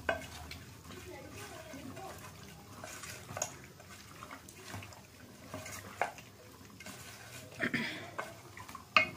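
Hands mixing raw chicken pieces with yogurt and spice paste in a steel bowl: wet squishing and squelching, broken every second or two by sharp clicks and knocks, the loudest near the end.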